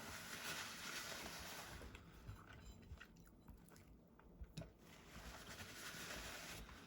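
A person chewing a bite of microwaved double cheeseburger, quiet and close to the microphone, with a few small clicks in the middle.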